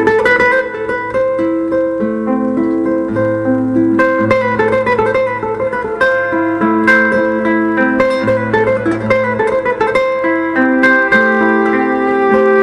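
Acoustic guitar and cello playing together: plucked guitar notes over long held cello notes.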